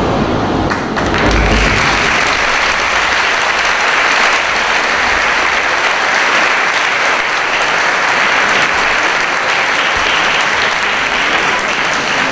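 Audience applauding, the clapping starting about a second in as the music ends and carrying on steadily.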